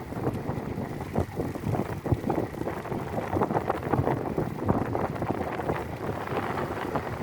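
Wind buffeting the microphone of a camera riding along on a moving bicycle: a steady rushing with frequent irregular gusty thumps.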